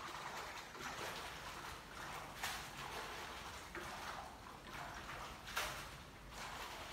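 Hands sloshing and splashing water in a plastic basin at a kitchen sink, in uneven swishes, with two sharper, louder splashes.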